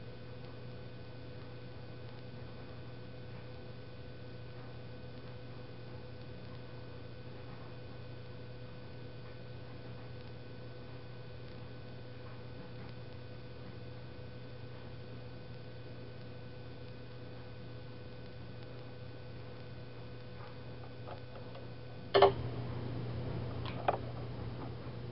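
Steady low electrical hum with faint thin whine tones above it. About 22 seconds in comes a sharp knock, the loudest sound, and a lighter click follows about two seconds later.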